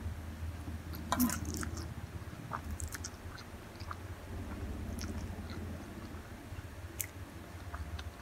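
A person chewing and eating noodles close to the microphone, with a few sharp clicks from the mouth or utensils, over a steady low hum.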